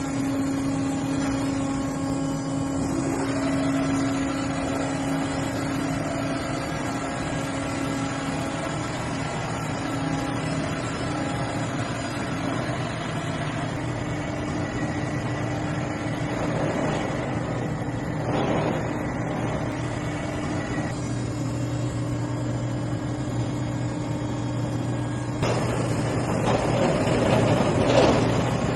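Zayer KMU-6000 bed-type milling machine running: a steady mechanical hum with several held tones that shift about two-thirds of the way in, short bursts of noise midway, and a louder rushing noise over the last few seconds.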